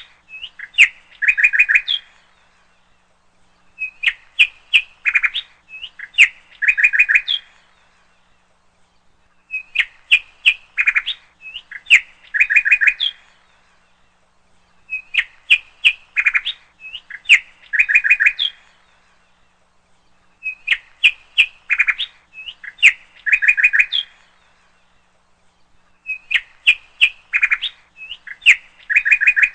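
Bird chirping: a phrase of quick, sharp chirps followed by a burst of rapid chirps, repeated in the same form about every five and a half seconds, with short quiet gaps between.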